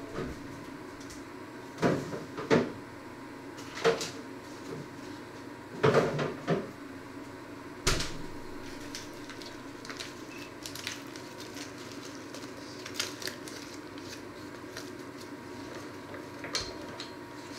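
Kitchen doors being opened and shut while someone fetches something: a handful of sharp knocks and bangs, mostly between about two and eight seconds in, with a few fainter taps later, over a steady hum.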